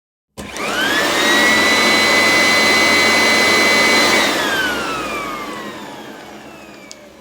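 An electric motor appliance switched on with a rush of air. Its whine rises quickly, holds steady for about three seconds, then falls slowly as the motor winds down after switch-off.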